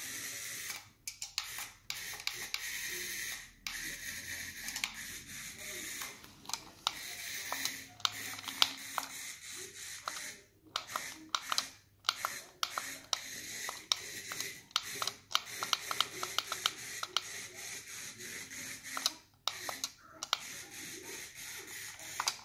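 Battery-powered toy mouse running over a stone countertop: its small motor whirs with a dense run of clicks and rattles, stopping briefly several times before starting again.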